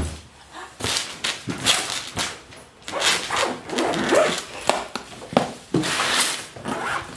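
Zipper of a hard-shell suitcase being pulled shut in a series of short strokes, as the overfull lid is forced closed. A thump at the very start as the lid is pressed down.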